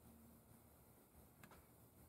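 Near silence: faint room tone with a single faint tick about one and a half seconds in.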